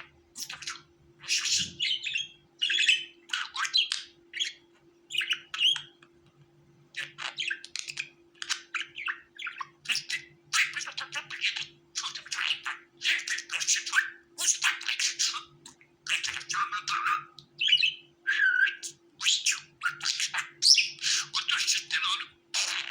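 Budgerigar chattering: a dense run of rapid chirps, squawks and warbling notes, with a short pause about six seconds in.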